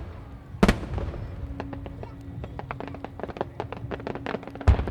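Aerial firework shells bursting: a loud boom about half a second in and another near the end, with a run of quick crackling pops in between.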